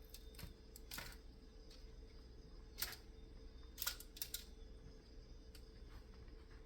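A few light clicks and taps from hands handling food and kitchen items while the tortillas are topped with cheese, over a faint steady hum. The clicks are sparse, with a small cluster about four seconds in.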